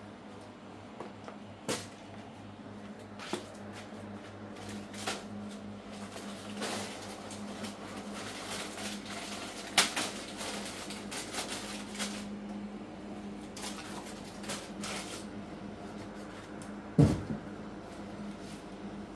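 Cardboard cartons and snack packets being handled: scattered knocks, taps and rustles, the loudest thumps about ten seconds in and near the end. A steady low hum runs underneath.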